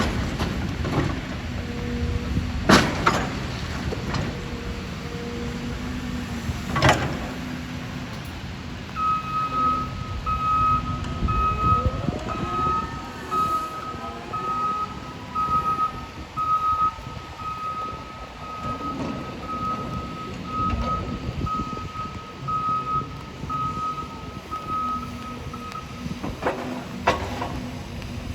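Diesel engine of a bucket loader running steadily, with three loud bangs: the bucket dropping or pounding material into a steel dumpster. For much of the middle a reversing alarm beeps steadily.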